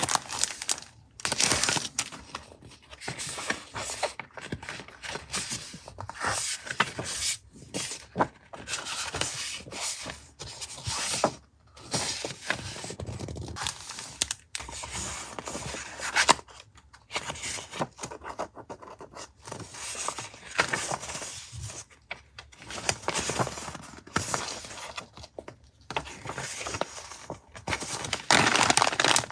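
Paper and packaging being handled and torn open: irregular rustling, scraping and tearing, in uneven bursts with short pauses between them.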